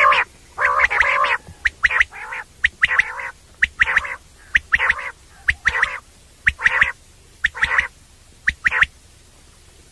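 Common quail calling: a series of short, harsh, raspy notes, many paired with a brief sharp note, repeated about once or twice a second and stopping near the end.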